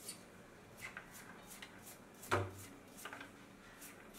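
Faint, crisp cuts of a knife dicing a raw carrot held in the hand, a couple a second, with the pieces dropping onto a steel plate. One louder short thump about two seconds in.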